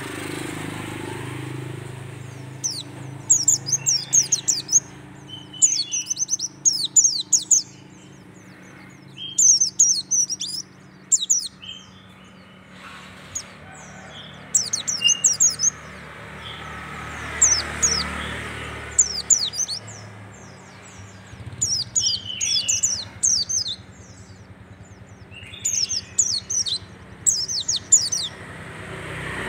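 Caged white-eye (pleci dakun) singing in rapid bursts of high, thin, downward-sweeping notes, each phrase a second or two long and repeated after short pauses, the fast 'tembakan' song prized by keepers.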